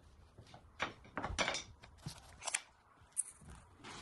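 Workshop handling noises: a series of short clicks and clattering knocks, as of plastic car parts and tools being handled, busiest a little past a second in, with a low thump at the very end.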